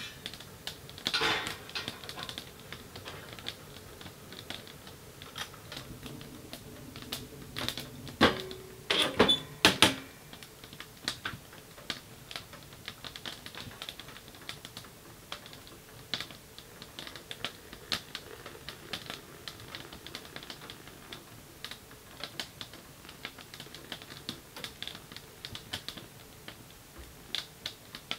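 Wood fire crackling and popping in a portable tent wood stove, with irregular sharp clicks. About eight to ten seconds in, a burst of louder knocks and clatter as cookware is handled on the stovetop.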